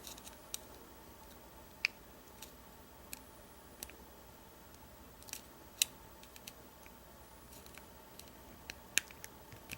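Scattered light metallic clicks of a lock pick and tension bar working in the keyway of an American 1305 padlock, a few sharper ticks standing out about two, six and nine seconds in.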